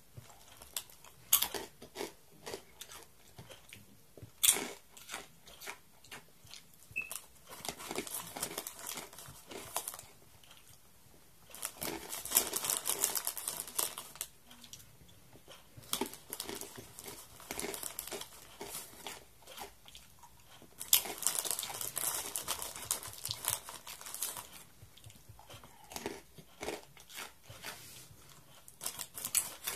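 Chewing and biting on a crunchy snack, with scattered sharp crunches, and a plastic snack wrapper crinkling in two longer spells, about twelve and twenty-one seconds in.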